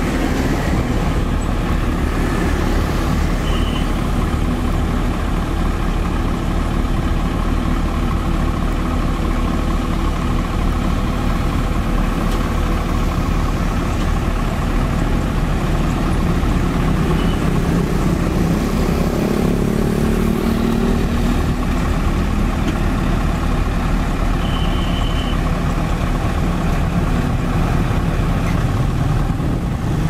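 Mitsubishi Fuso truck's diesel engine running steadily while its hydraulic jack legs lift the truck's front end. A second engine note rises and falls a little past halfway, and a few brief high tones are heard.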